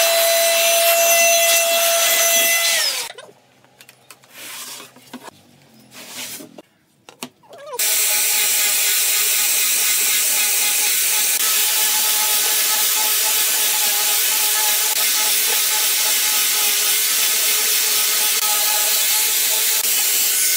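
Electric angle grinder with a sanding disc, running steadily as it sands the edge of a wooden ring. It comes in about eight seconds in, after another power tool winds down in pitch around three seconds in and a few seconds of quiet handling sounds.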